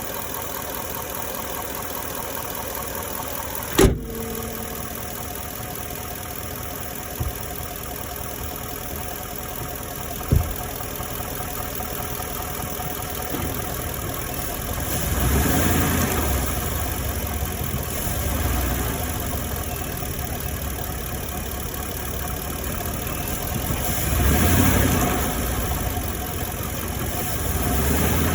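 2018 Ford F-150's 5.0-litre V8 running as the truck is driven, its sound swelling several times as it pulls, with a sharp knock about four seconds in and two fainter ones later. The owner reports an engine knocking noise while driving.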